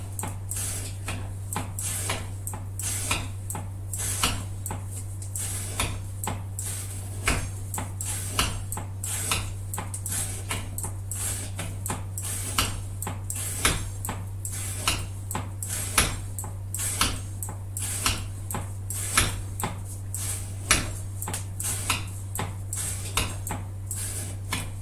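A CPM 125V knife blade making repeated cutting strokes in an edge-retention test, each cut a sharp short snap, about two a second, a little irregular.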